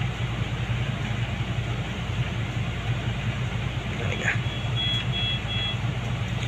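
Steady low hum of a wall-mounted air conditioner. Around five seconds in, a few short, high electronic beeps sound from hospital equipment.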